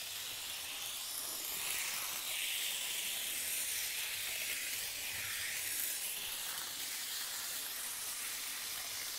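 Bachmann N scale Santa Fe 4-8-4 Northern steam locomotive running around the track: its small electric motor and gearing whir, with a steady high hiss of the wheels on the rails. The sound grows a little louder a couple of seconds in and eases off again later on.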